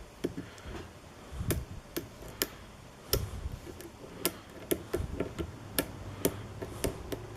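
Irregular sharp metallic clicks and taps, about one or two a second, from a lock pick working the pins of a pin-tumbler challenge lock held under tension.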